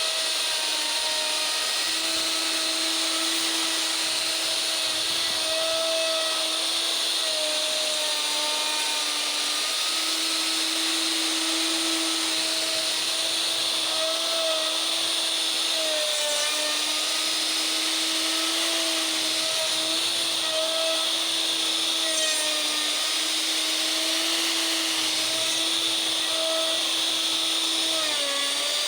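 Makita router roaring steadily as it surfaces end-grain elm, a high motor whine that sags slightly in pitch now and then as the bit takes load.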